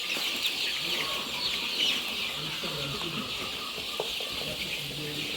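A flock of four-week-old layer chicks peeping, many short high chirps overlapping without pause.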